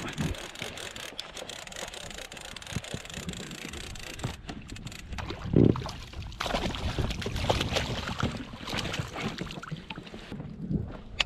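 Wind buffeting the microphone aboard a small inflatable boat at sea, with scattered clicks and knocks and one heavy low thump a little past the middle.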